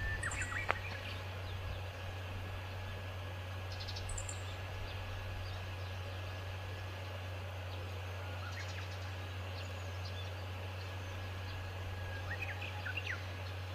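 Small birds giving short, high chirps a few times: near the start, about four seconds in, and in a cluster near the end, over a steady low hum.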